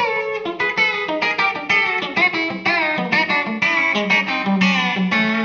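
Electric guitar playing the A scale as two-note pairs on the G and B strings, moving along the neck, with string bends on the G-string note. A continuous run of picked notes, several a second, the bent notes sliding and wavering in pitch.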